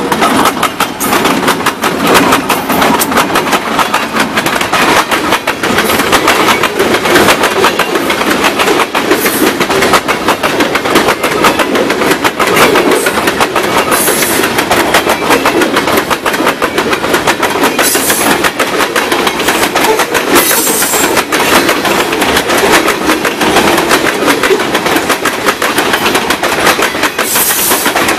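A freight train passing at close range: its diesel locomotives and then a long string of covered hopper cars roll by with a loud, steady clatter of steel wheels on the rails.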